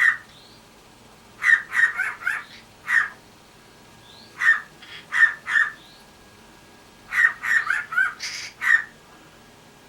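Cockatiel giving short, sharp bark-like calls in imitation of a dog. The calls come in quick runs of several at a time, about fifteen in all.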